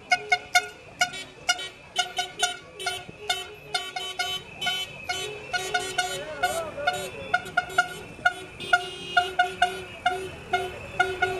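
A passing motorcade: fast, rhythmic music with sharp percussive beats and short repeated notes, mixed with car horns tooting.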